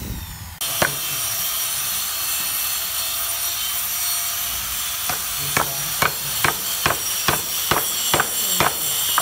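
Hammer striking a steel chisel into the face of a round wooden chopping board, carving the grinding grooves of a hand-made rice huller: one blow about a second in, then a quick run of about nine sharp taps, about two a second, near the end.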